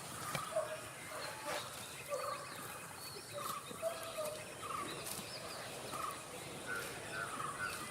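Farmyard background of short bird calls, many small separate chirps scattered through a steady hiss, with no mooing.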